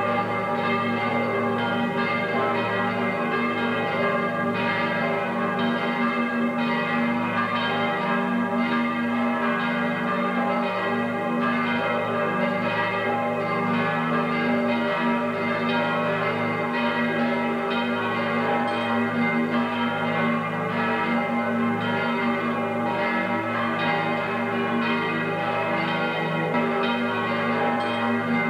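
Church bells pealing continuously, with many overlapping ringing tones at an even level.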